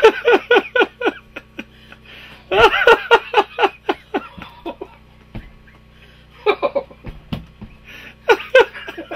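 A man laughing hard in rapid bursts of short "ha" sounds, in four bouts with short pauses between.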